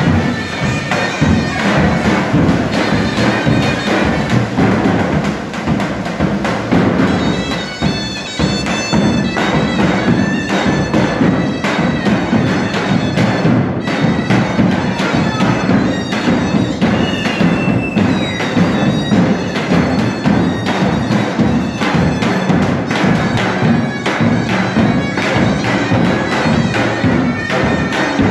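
Live wedding music from a drum-and-reed ensemble: a reed wind-instrument melody over fast, dense drumming, playing on without a break.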